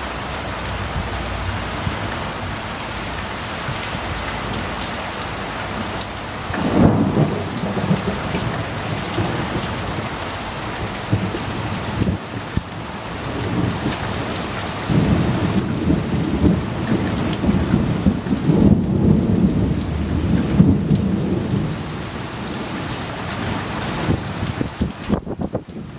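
Heavy rain falling steadily, with rolling thunder rumbling in about six seconds in and again in a longer roll from about 15 to 21 seconds.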